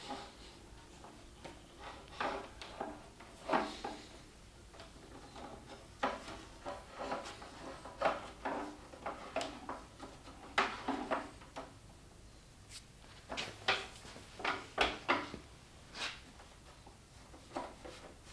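Electrical cable being pulled through a hole and laid into a channel in a wooden bench frame: irregular knocks, scrapes and rubs of the cable against the wood.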